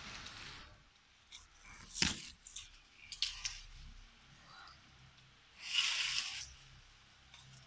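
Dry rustling of coconut palm fronds in short bursts as a climber moves up through them, with a sharp knock about two seconds in and a few lighter clicks.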